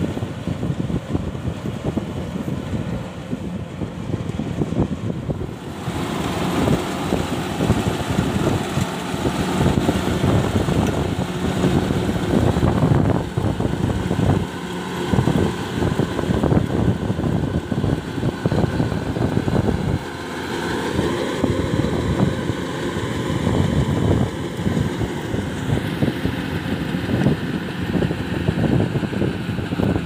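Kubota DC-105X combine harvester's diesel engine and threshing machinery running steadily while it harvests rice, mixed with heavy wind buffeting on the microphone. The sound changes abruptly about six seconds in, and again later.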